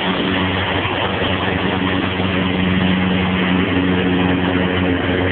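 Gas string trimmer running steadily as it cuts grass.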